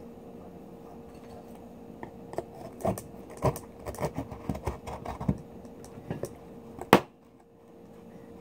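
Knife blade scraping and clicking against the shell of a jumbo pearl oyster as it is worked into the edge to pry the valves apart: a run of irregular scrapes and clicks, ending in one sharp, loud click.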